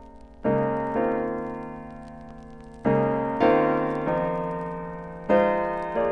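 Slow, soft piano music: chords struck one after another, each left to ring and fade before the next.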